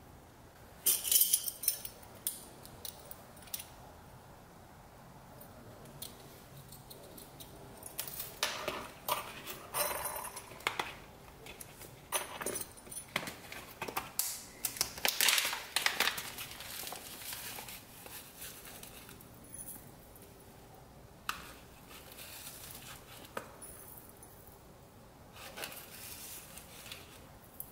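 Crinkling and rustling of a foil-backed resealable pouch of loose-leaf tea being handled and opened, in irregular bursts with sharp clicks.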